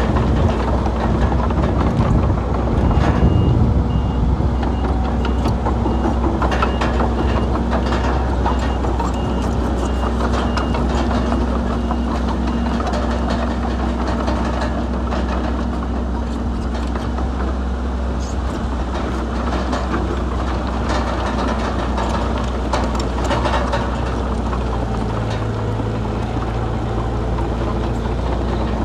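Heavy earthmoving machines' diesel engines running steadily, with a reversing beeper sounding in a regular series for the first ten seconds or so. Scattered knocks and rattles throughout.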